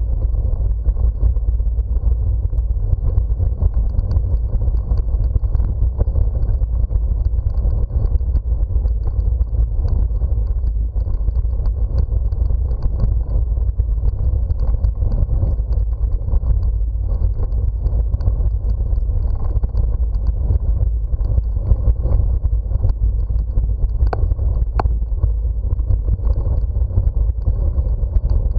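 Steady low rumble of wind buffeting the microphone and bicycle tyres rolling over brick paving while riding, with a couple of short clicks near the end.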